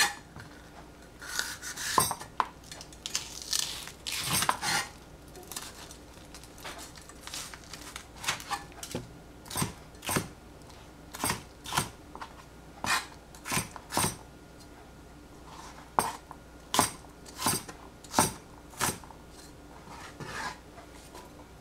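Chinese cleaver chopping capsicum, its blade knocking on a plastic cutting board in a series of sharp knocks. The knocks are irregular at first, then come steadily, about one to two a second.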